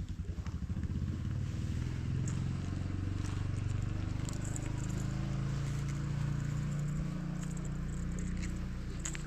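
A boat motor running at low speed: a steady low hum whose pitch shifts slightly, pulsing briefly at first, with light clicks and rustles over it.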